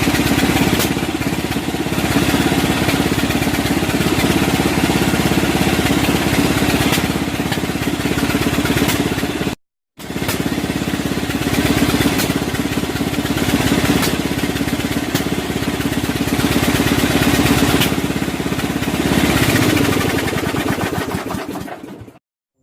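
Power sander running steadily against the kart's bodywork. It stops abruptly about ten seconds in, starts again at once, and dies away near the end.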